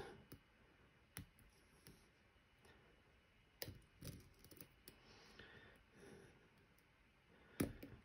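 Faint, scattered metallic clicks of a lock pick and tension wrench working inside a Medeco M3 high-security lock, as the pins are probed one at a time for binding. The loudest click comes near the end.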